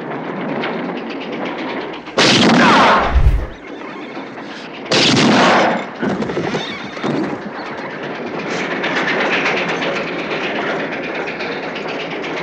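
Two loud revolver shots about three seconds apart, each ringing on for most of a second, with a low thud just after the first. Under them runs the steady rhythmic clatter of a moving train on the rails.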